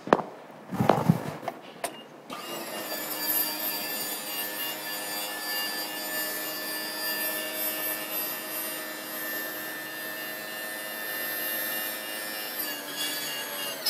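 Electric hydraulic power unit of a Haulotte LiteRiser 10SP lift running steadily with a whine as the platform is raised, starting about two seconds in and cutting off near the end.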